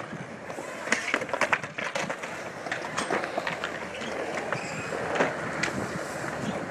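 Skateboard wheels rolling over smooth concrete in a steady hum, broken by frequent sharp clacks.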